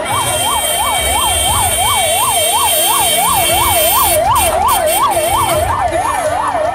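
Ambulance siren on a fast yelp, its pitch sweeping up and down about three times a second.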